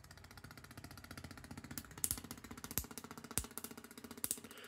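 Homemade DRSSTC Tesla coil firing in interrupted mode, not yet ramped QCW: a fast, even buzz of spark pulses at the interrupter rate. A few louder cracks come through the middle.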